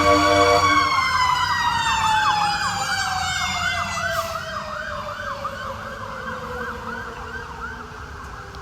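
Fire rescue truck's sirens. A Federal Q mechanical siren screams on one high note, then winds down in a long, slow, falling tone from about a second in, under an electronic siren yelping about three times a second. The truck's train-style air horns sound several steady notes together and cut off just under a second in. Everything slowly fades.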